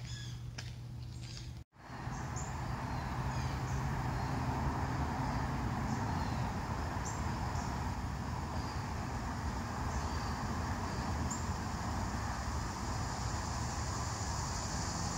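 Outdoor park ambience: a steady rumble of distant road traffic with a few faint bird chirps, and a steady high buzz that grows louder near the end. In the first couple of seconds a run of short high chirps is cut off by a brief dropout.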